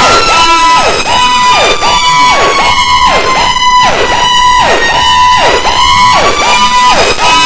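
Fire squad vehicle's electronic siren sounding a fast yelp, about two sweeps a second that dip sharply from a high held tone and climb back. Under it a second, steadier siren tone slides slowly down and then back up.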